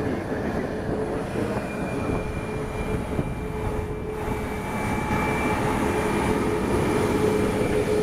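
Boeing 737 MAX 8's CFM LEAP-1B jet engines running at taxi power: a steady rumble with a held whine, getting somewhat louder in the second half.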